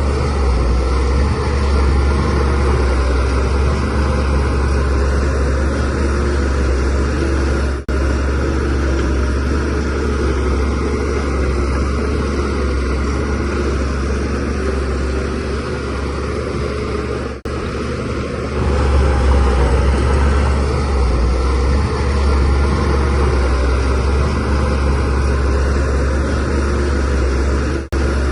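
DH17C3 bulldozer's diesel engine running steadily under load with a deep drone, dropping out briefly three times.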